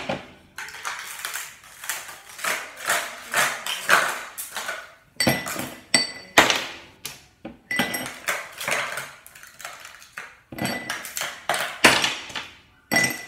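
Dishes and utensils clattering and scraping in the kitchen, with several sharp clinks that ring briefly.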